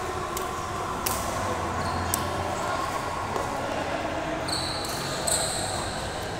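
Badminton racket strikes on a shuttlecock: three sharp hits about a second apart in the first couple of seconds, echoing in a large indoor hall. A short high squeak of sports shoes on the court floor follows about four and a half seconds in.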